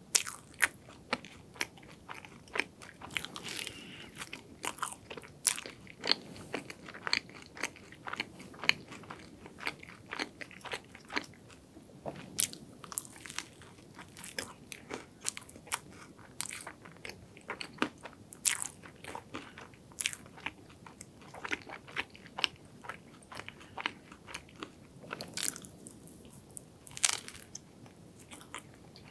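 Close-miked eating of a cream-topped croffle (croissant waffle): crisp crunches of the pastry crust at each bite, then chewing, in an irregular string of sharp crackles.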